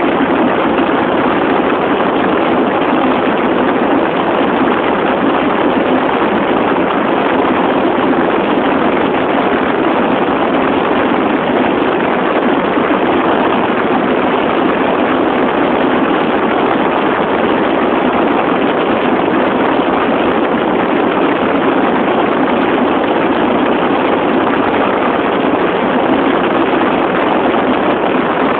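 Starmine fireworks barrage: so many shells burst at once that the explosions merge into one steady, unbroken noise with no separate bangs.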